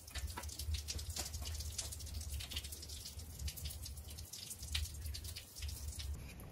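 Water dripping and trickling from the loosened flange joint of a Bell & Gossett 100 series circulator pump, in many irregular drips and splashes over a low steady hum. It is the small amount of water trapped between the closed isolation valves draining out.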